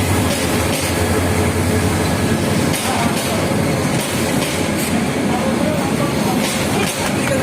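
Kishoreganj Express passenger train running on the rails: a loud, steady rumble with a few sharp clacks of the wheels over rail joints.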